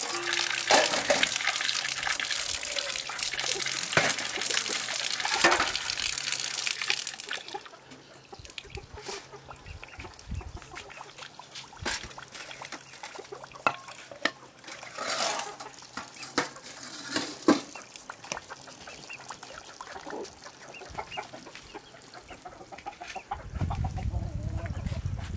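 Water running or pouring for about seven seconds, then stopping, followed by scattered light clicks and knocks.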